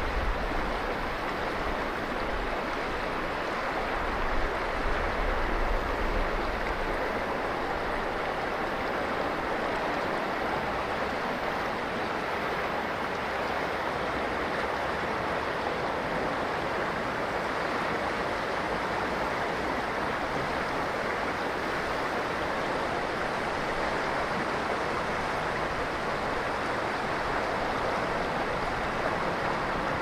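Steady rushing of flowing river water from the Ishikari River, an even, unbroken wash of sound.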